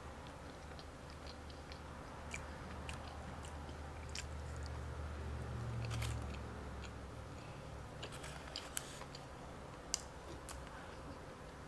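A person chewing and eating close to the microphone, with scattered small wet mouth clicks and smacks and a couple of sharper clicks late on.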